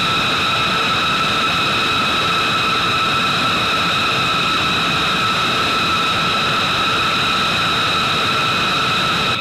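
B-2 Spirit's General Electric F118 turbofan jet engines running on the ground at a steady idle: a loud, even rush with a high whine held at one constant pitch.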